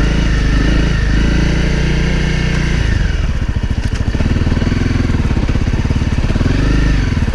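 2017 Honda CRF250L's single-cylinder four-stroke engine running at low revs while riding slowly over rocks. About three seconds in the revs drop until the separate firing pulses can be heard, then pick up again with a short rise and fall near the end.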